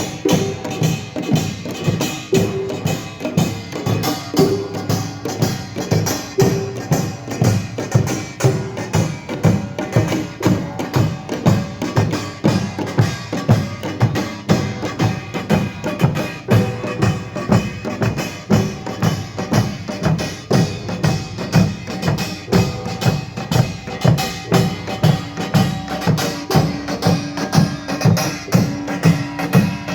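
Korean pungmul percussion band playing a fast, steady rhythm: the sharp metallic clang of small kkwaenggwari gongs over beaten janggu and buk drums, without a break.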